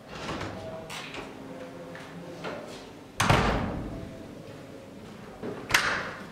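Door noises: a loud thud about three seconds in, then a sharper bang near the end as a wooden toilet door is pulled open.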